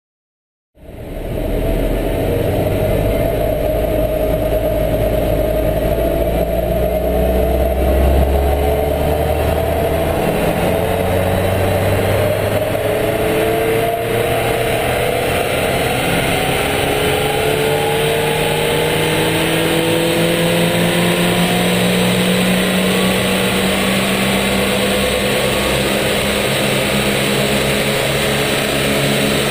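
Opel Corsa D 1.4 turbo four-cylinder petrol engine running under load on a roller dynamometer, its pitch climbing slowly and steadily as the revs rise through a long power run. The sound starts abruptly about a second in.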